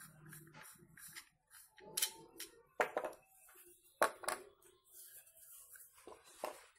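Threaded PVC socket fittings and pipe being handled and fitted together: a few sharp plastic clicks and knocks, the loudest about three and four seconds in.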